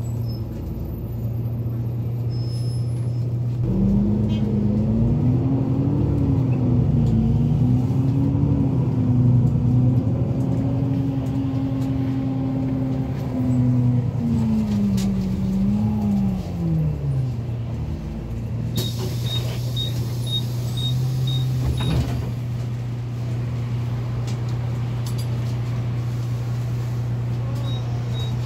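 Diesel engine of an Otokar Kent C12 city bus heard from inside the passenger cabin: a steady low hum, with the engine note rising as the bus pulls away. The note wavers and then falls back to the hum a little past halfway. Later a regular high ticking comes in, about two ticks a second.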